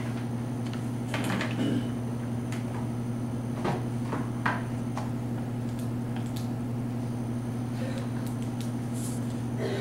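Room tone: a steady low hum with a few scattered small knocks and clicks, the clearest a cluster about a second and a half in and a sharp click about four and a half seconds in.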